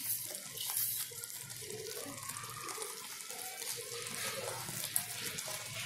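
Thick tamarind and jaggery chutney bubbling in a steel pan: a steady hiss with small, irregular popping bubbles.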